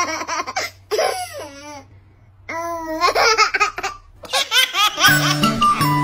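A baby laughing in repeated bursts with short pauses between them. Background music begins about four seconds in.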